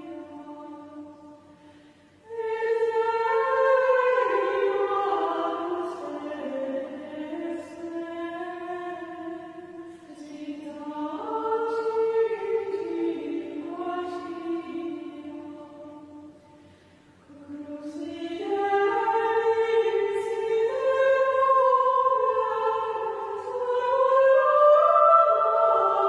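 Choir of Benedictine nuns singing Gregorian chant, one melody line sung in unison by women's voices. The chant moves in phrases, with brief breaks about two seconds in and again around sixteen seconds.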